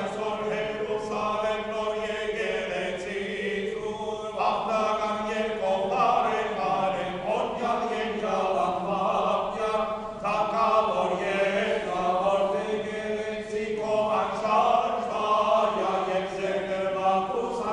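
A men's choir chanting an Armenian Apostolic liturgical hymn, several voices singing together over a steady low held note.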